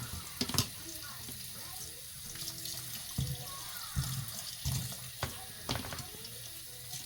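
Kitchen tap running steadily into a sink, with several sharp knocks and clatters of things handled in the sink.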